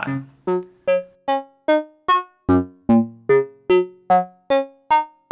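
Make Noise Eurorack modular synthesizer playing a clocked sequence of short notes, about two and a half a second, each starting sharply and fading quickly. The pitch changes on every note in a repeating eight-note pattern: PoliMATHS in round mode with span at 1 steps straight through its eight channels one at a time.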